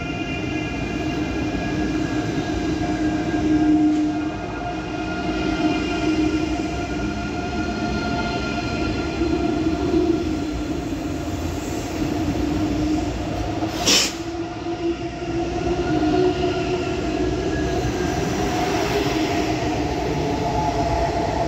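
Deutsche Bahn ICE high-speed train running past close by: a continuous rumble of the passing cars with several steady whining tones over it. One sharp click about fourteen seconds in.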